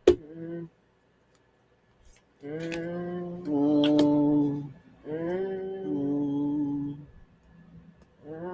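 A person humming two long, held phrases, each stepping down from a higher note to a lower one. A sharp tap at the very start.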